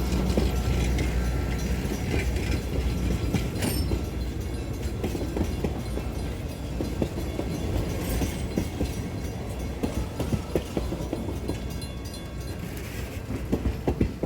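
Passenger train rolling by, its wheels clicking over the rail joints over a low rumble that eases toward the end.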